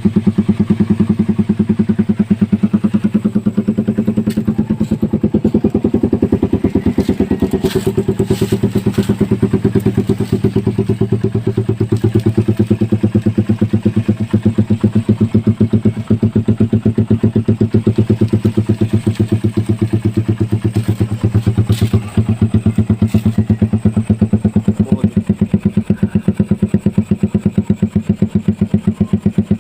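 Motorcycle engine idling steadily through an aftermarket Daeng Sai4 exhaust, a loud, even pulsing exhaust note.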